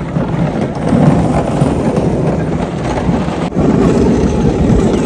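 Wind buffeting the microphone on a moving chairlift: a loud, irregular low rumble. About three and a half seconds in it breaks off for an instant and comes back louder.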